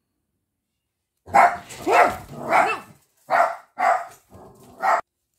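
Dog barking loudly, about six barks in quick succession starting about a second in, set off by a cat passing over the roof.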